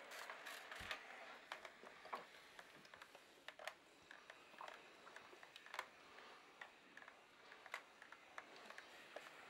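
Near silence with faint scattered clicks and soft rustles: a steam iron being pushed over cloth.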